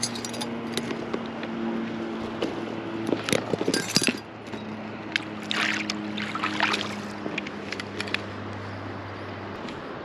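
Water splashing and dripping as a small trout is let out of a landing net into shallow river water and the net is lifted and shaken, with a few light clicks from handling; the splashes come in two spells, about three seconds in and again around six seconds. A steady low hum runs underneath.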